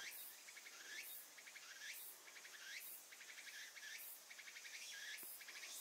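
Faint insect call, a short run of quick pulses ending in a rising sweep, repeated steadily about once every second.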